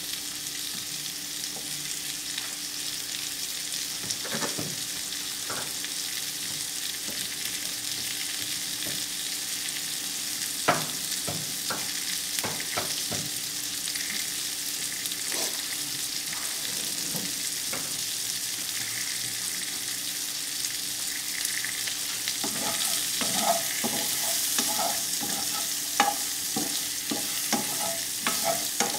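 Food sizzling steadily in a frying pan on a gas burner, with a spoon stirring and knocking against the pan now and then, most busily near the middle and again toward the end.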